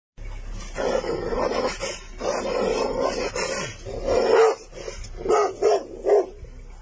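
Large dog barking at close range: long, rough bursts of barking, then three short, sharp barks near the end.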